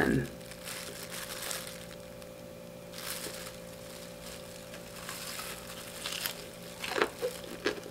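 Disposable plastic glove crinkling as a piece of fried chicken is handled, then crunchy bites into the chicken's crisp fried coating in the last couple of seconds.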